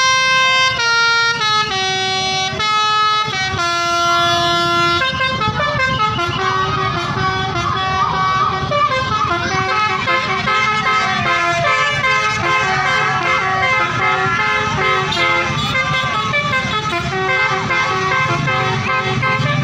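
Indonesian bus telolet horn, a multi-tone musical air horn, playing a tune of held notes that step from pitch to pitch. After about five seconds the notes come faster and overlap in a busier run.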